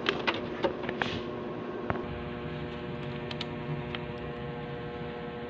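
Steady electrical hum from an amplified speaker system that is switched on and idle, with a few sharp clicks in the first two seconds.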